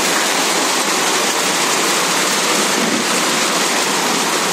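Heavy rain pouring down: a loud, steady hiss, really noisy.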